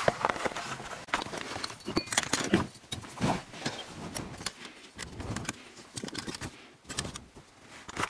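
Handling noise: irregular clicks, taps and rustles of hands moving small plastic parts and wires while refitting a car's heater blower-fan resistor.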